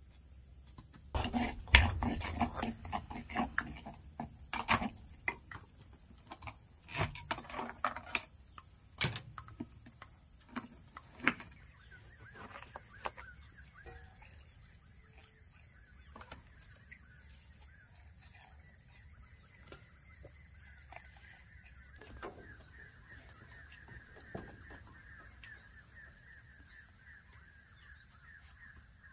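Food-prep handling noises: a run of sharp clicks and knocks from a small plastic jar being opened and a metal spoon against a wooden mortar, loudest in the first few seconds and thinning out after about eleven seconds. From then on a faint steady high-pitched drone sits in the background, with occasional light ticks.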